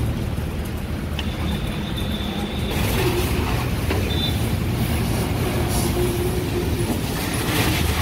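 A steady low machine hum with some hiss. A thin high tone sounds briefly about a second in.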